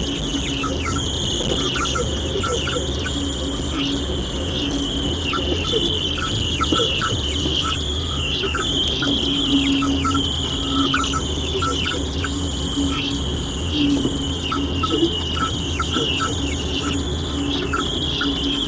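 Radio receiver putting out an unidentified signal: a steady hiss of static laced with rapid chirps and clicks, over a low hum, with a low tone that switches on and off in short stretches from about halfway through.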